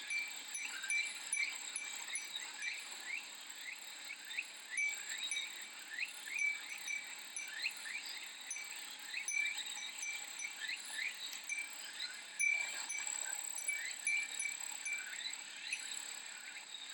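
Cicadas singing: a steady high drone with many short rising chirps repeating about twice a second, and a Japanese fūrin wind chime tinkling over them.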